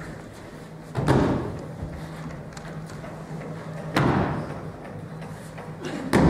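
Three heavy thuds about three seconds apart: a person being thrown and landing in breakfalls on a foam mat, each thud with a short echo.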